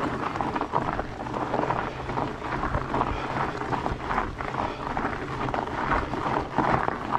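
The big 4.8-inch fat-bike tyres crunching and rolling over dry, gravelly dirt on a slow, steep climb, with an uneven low rumble from the moving bike.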